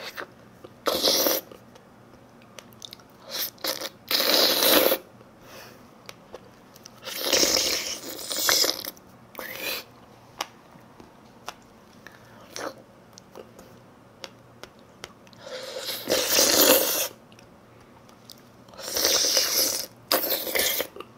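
A person eating close to the microphone: crunchy chewing and bites in bursts of about a second, several times over, with small clicks between them.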